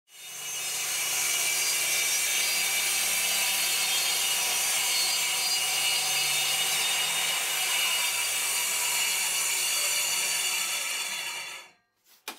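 Makita 5604R circular saw ripping a long wooden stud along the grain with its blade tilted for a bevel cut. It comes up to full sound in about a second, cuts steadily for about eleven seconds, and cuts off suddenly near the end.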